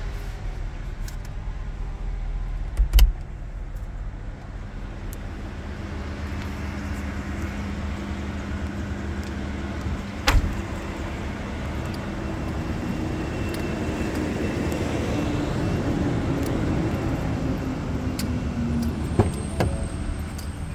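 A 2021 Ford F-150 pickup idling steadily with a low hum. Two sharp thuds, about three seconds in and again around ten seconds, stand out over it.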